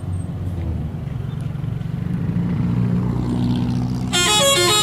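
Bus engine running with a low rumble, then about four seconds in a telolet horn cuts in loudly, playing a quick melody of stepped musical tones.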